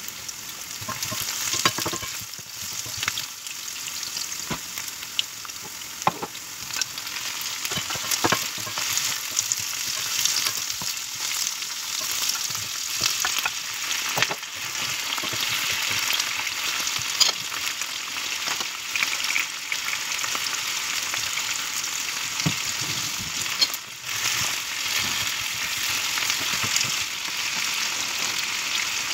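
Chicken wings, green peppers and onions sizzling in a frying pan: a steady crackling hiss with scattered sharp clicks of stirring against the pan.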